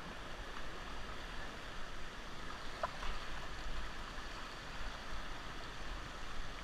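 Steady rush of river water flowing around a whitewater raft.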